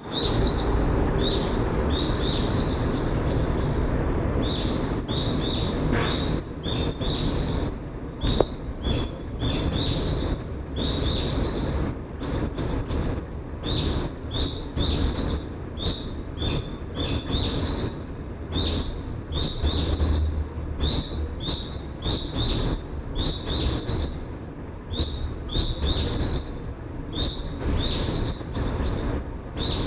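Small birds chirping busily: short, high chirps several times a second, over a steady low rushing background.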